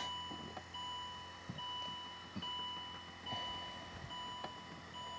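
2006 Land Rover LR3's electronic warning chime ringing over and over, a bit more than once a second. It sounds because the key is in the ignition at its first position, and it is an annoying sound.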